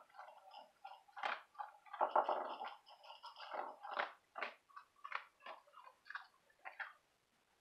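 Dog eating dry kibble from a bowl: irregular crunching and chewing, which stops shortly before the end.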